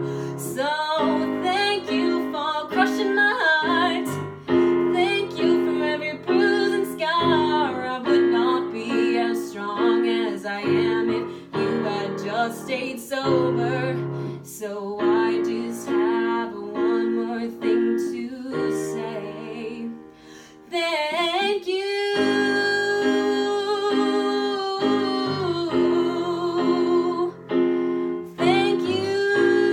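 A woman singing a slow ballad while accompanying herself on an electric keyboard with a piano sound, playing steady repeated chords. About twenty seconds in the music drops away briefly, then she holds one long note over the chords.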